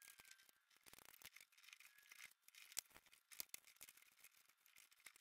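Faint small metal clicks and scrapes as a clock mainspring is worked into its brass barrel on a spring winder.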